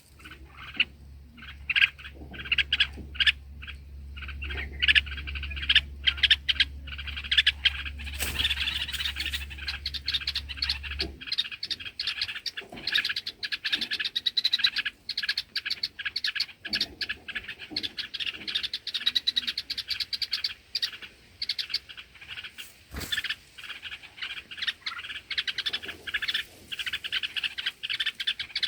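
Bulbuls calling at the nest: a dense run of short, sharp chirps that gets busier and louder from about eight seconds in. A low steady hum sits under the first part and stops about eleven seconds in, and there is one sharp knock about three-quarters of the way through.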